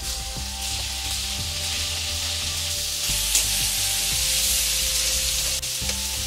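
Prawns sizzling as they fry in hot oil in a steel kadai, stirred with a steel spatula; the sizzle grows louder about halfway through.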